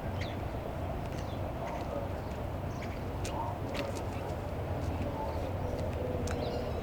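Outdoor ambience: scattered short bird chirps and sharp clicks over a steady low hum.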